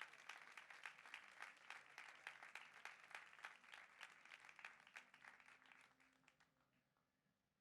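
Faint applause from a small audience, many hands clapping irregularly, thinning out and dying away about six seconds in.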